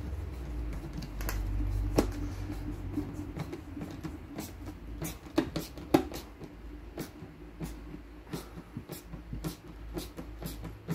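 Hand screwdriver turning a small screw into a Series Land Rover door-top frame, making irregular sharp clicks about one or two a second, the loudest about two and six seconds in, over a low steady rumble.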